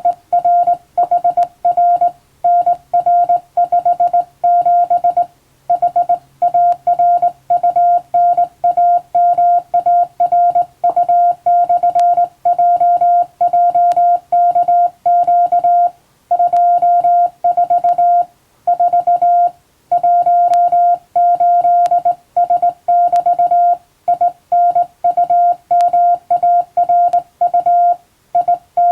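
Morse code (CW) practice: a single steady mid-pitched beep keyed on and off in short dots and longer dashes, with brief gaps between characters and longer pauses between words.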